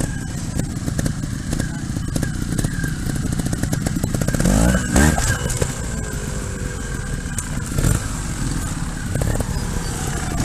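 Trials motorcycle engine running at low revs, then revving up sharply about halfway through as the bike is hopped up onto a log.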